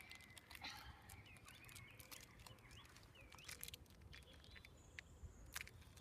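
Faint crinkling and clicking of a foil blind bag being pulled at, with a few short bird chirps over a steady low outdoor rumble.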